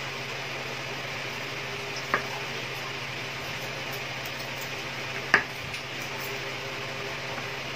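Kitchen knife slicing cooked pork on a wooden chopping board: soft cutting with two sharp knocks of the blade on the board, about two seconds in and about five seconds in, over a steady background hum and hiss.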